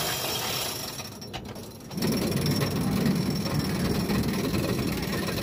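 Bobsled roller coaster car climbing its chain lift hill: steady mechanical clatter of the lift chain and anti-rollback ratchet. About two seconds in it grows into a louder, steady rumble.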